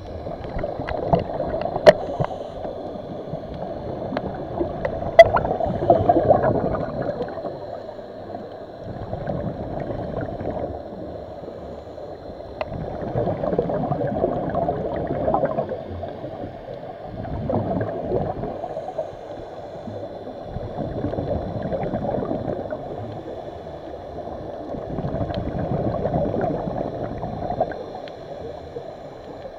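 Water gurgling and sloshing, swelling and fading about every four seconds, with two sharp clicks about two and five seconds in.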